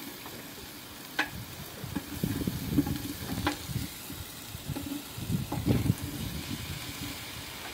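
Long wooden spoon stirring in a large aluminium cooking pot: irregular scraping and knocking against the pot, with a couple of sharper clicks.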